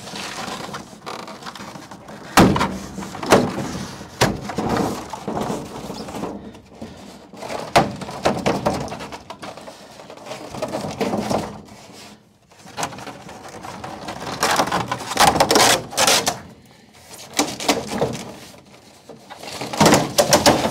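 Polystyrene insulation sheet being forced out of a stainless steel incubator cabinet: irregular scraping and creaking of the foam against the walls, with several sharp knocks.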